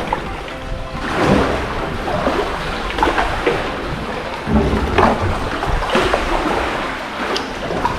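Sea water sloshing and splashing around a kayak as it is paddled through a narrow sea cave, coming in uneven surges with a few sharp splashes.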